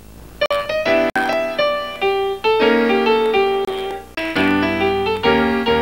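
Piano music starts about half a second in: a melody of single notes over chords, the introduction to a ballad. Near the start the sound cuts out for an instant twice, a tape glitch.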